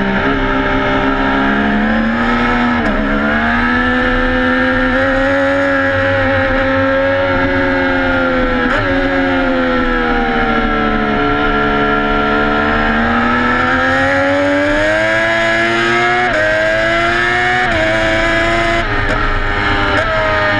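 Racing sportbike engine at high revs, heard onboard at track speed. Its pitch climbs and sags through the corners, with sudden drops at upshifts, two of them close together near the end.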